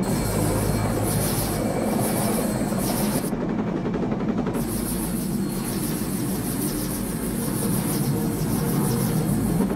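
Helicopter rotors and turbine engine running in a film soundtrack: a loud, steady, dense rumble with a fast even chop.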